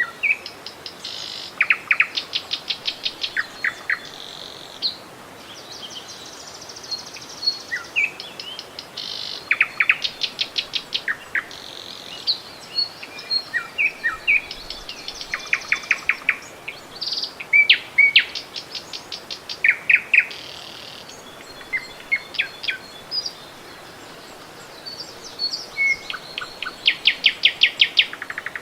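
Songbirds singing: rapid trilled phrases of quick repeated notes alternating with short whistles and chirps, a new phrase every second or two, over the steady rush of running river water.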